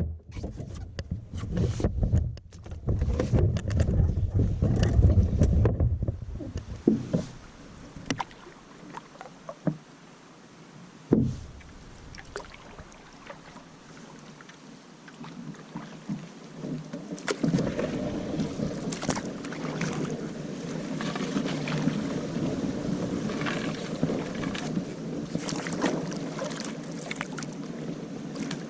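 Water splashing and sloshing around a canoe being moved through a shallow creek, with hollow knocks on the hull. A heavy low rumble fills the first several seconds, there is a sharp knock about eleven seconds in, and from about two-thirds of the way through there is a steadier stroking of water.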